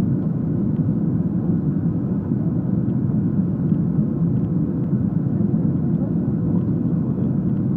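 Steady cabin noise of a Boeing 737-300 arriving to land: its CFM56-3 turbofans and the airflow heard from a window seat beside the engine, a dull, even low rumble with a faint steady hum.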